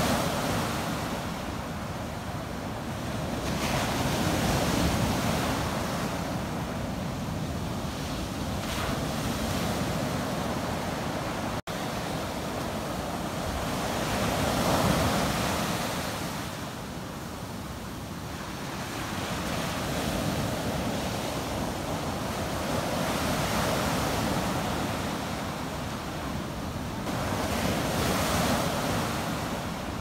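Ocean surf breaking and washing up onto a sandy beach, a rushing wash that swells and ebbs every few seconds. One split-second dropout about twelve seconds in.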